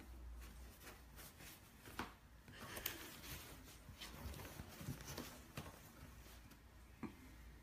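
Faint rustling and scratching of paper and cardboard as two cats shift about in a box, with a few soft taps.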